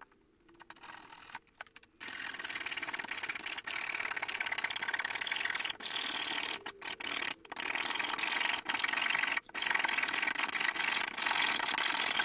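A blade scraping back and forth along a score line in a copper-clad circuit board, cutting it to size: a continuous rasping scrape that starts about two seconds in and breaks off briefly between strokes.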